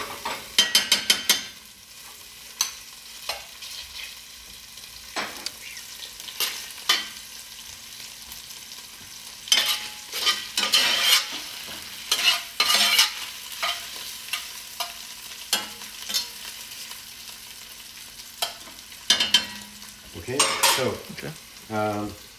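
Bacon pieces frying and sizzling in a Staub enamelled cast-iron cocotte. A metal spoon scrapes and clinks against the pot in several bouts of stirring, the busiest about a second in, in the middle, and near the end.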